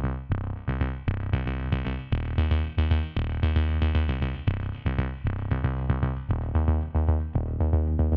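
Background electronic music with synthesizer and a steady drum-machine beat.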